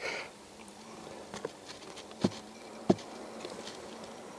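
Faint, steady hum of a honeybee colony wintering in a log hive: the colony is alive, its cluster out of sight deep down near the lower entrance. Three soft clicks sound in the middle.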